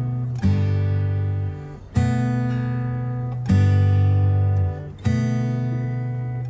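Background music: acoustic guitar chords, each a fresh strum about every one and a half seconds and ringing out until the next.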